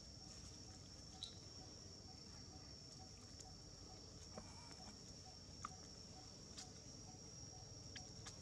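Near silence with faint forest ambience: a steady high insect drone and a faint regular pulsing call throughout, broken by a few brief chirps and clicks.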